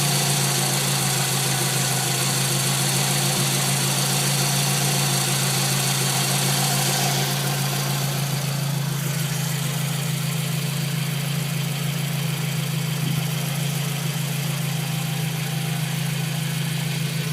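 Scion tC engine idling steadily with a newly installed water pump, without the scraping, scratchy noise that the old pump's gritty bearing made. The higher hiss eases a little about eight seconds in.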